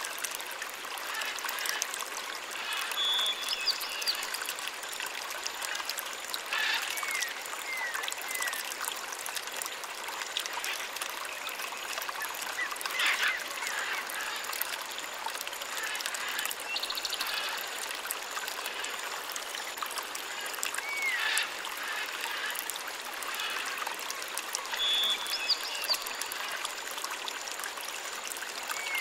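Steady trickling, running water, with short high chirping calls and sharp ticks recurring every several seconds.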